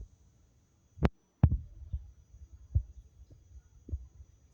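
A series of soft, low knocks and thumps at an irregular pace, about one every half second to second, with two sharper clicks about a second in.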